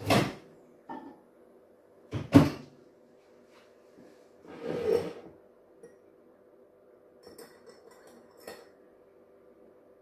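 Kitchen handling sounds: crockery knocked and set down on a stone countertop, with a sharp knock at the start and a louder double knock about two seconds in, a brief rushing swish around five seconds, and light clinks near the end, over a steady low hum.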